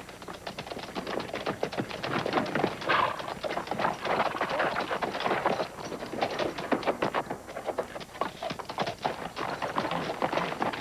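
Horse hoofbeats: a dense, fast run of strikes.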